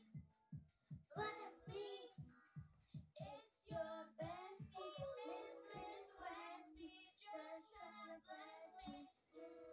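Music: a song with a high, young-sounding sung vocal over a steady beat.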